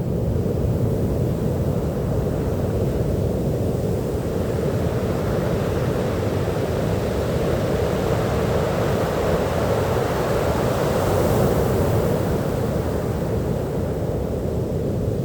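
Ocean surf washing on a beach: a steady rush of waves that swells a little about two-thirds of the way through.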